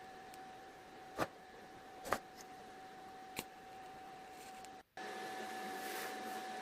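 TIG welding arc on a steel clutch housing, fusing it without filler at about 65 amps: a steady hiss with a steady hum-like tone, three light clicks in the first half. It drops out briefly near five seconds and comes back a little louder.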